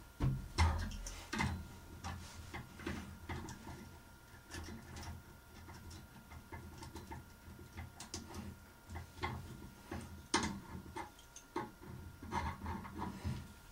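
Two crescent wrenches clicking and tapping against a brass compression nut and shutoff valve as the nut is tightened onto a half-inch copper pipe, squeezing the brass ferrule to seal. Irregular metal clicks over low handling noise, with one sharper click about ten seconds in.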